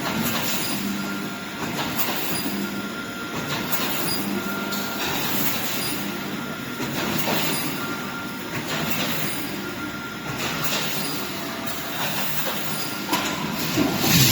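Automatic wire mesh welding machine running in production, a steady mechanical clatter with clicks and a cycle that repeats roughly every second or so.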